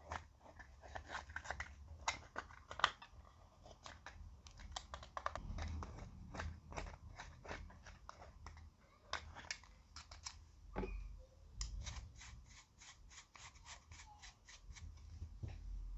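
Wooden stick scraping and crumbling pressed makeup highlighter powder in its small plastic pan: an irregular stream of crisp scratching and crunching clicks. Near the end a makeup brush rubs across the powder.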